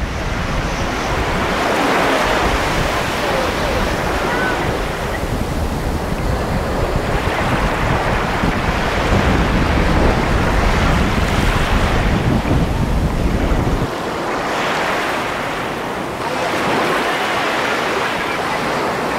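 Sea surf washing in surges, with wind buffeting the microphone, a heavy low rumble that cuts off about three-quarters of the way through.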